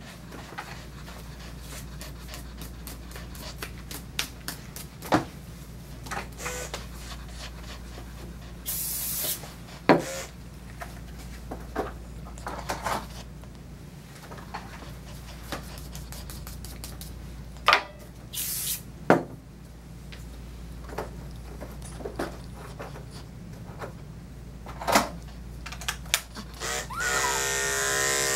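Two short hisses of clipper-blade coolant spray with scattered clicks and taps of grooming tools; near the end electric dog clippers switch on and run with a steady buzz.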